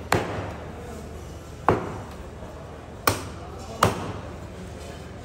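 Butcher's cleaver chopping through meat and bone on a cutting counter: four sharp chops at uneven intervals.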